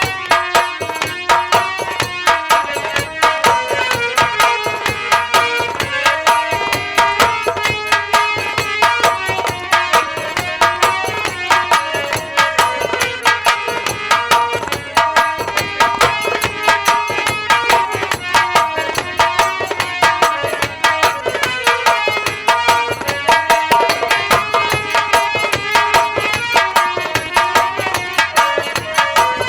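Instrumental Indian folk music from a live band: a fast, dense hand-drum rhythm with a melodic instrument playing a winding tune over it.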